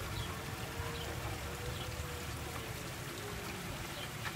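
Water flowing and trickling steadily into a garden pond.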